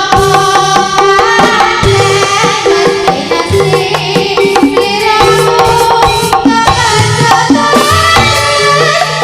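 Live Javanese jaranan (turonggo horse-dance) music: hand drums beating a dense rhythm under tuned gamelan-type percussion playing held, ringing notes.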